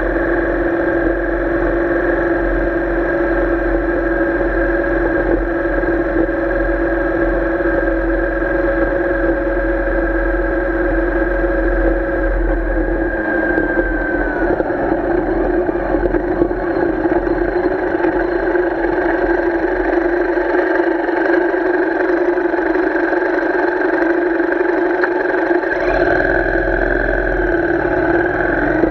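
Royal Enfield Interceptor 650's 648 cc parallel-twin engine running at steady cruising revs, a constant drone with a short drop in pitch about halfway. Near the end the engine eases off as the bike slows.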